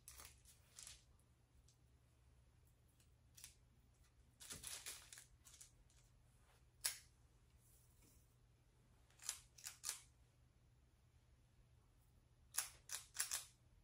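Metal squeeze-handle cookie scoop clicking and scraping as its lever sweeps dough out onto parchment paper: short, sharp snips, some single and some in quick clusters of two or three.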